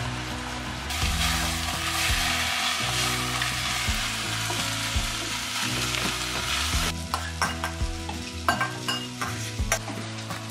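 Sliced onions sizzling as they sauté in a black cast-iron pot, the hiss starting about a second in. In the second half a wooden spatula stirs them, with repeated knocks and scrapes against the pot.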